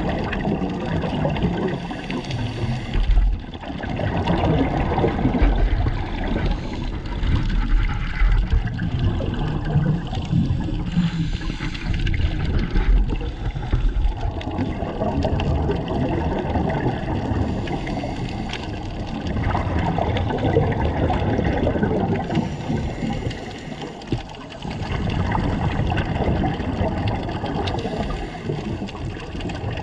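Muffled water noise heard underwater, a steady rushing and sloshing that swells and eases every few seconds.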